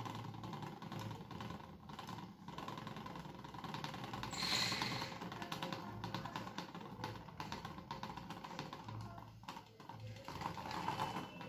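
Beyblade Burst top spinning on a hard tabletop, with a steady whir and a fine rattle from its tip as it wobbles. A brief hiss comes about four and a half seconds in.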